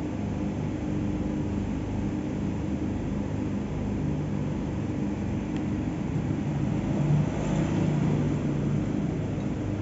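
Steady low background rumble with a faint hum, swelling slightly about seven seconds in.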